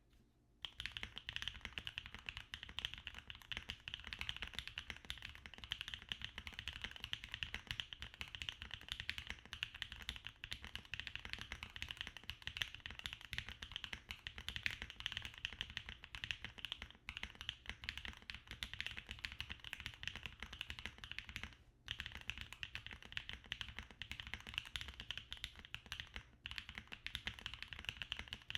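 Continuous fast typing on a Bakeneko60 mechanical keyboard with Gateron Sea Salt Smoothie linear switches, a dense stream of key clacks, with short pauses twice near the end.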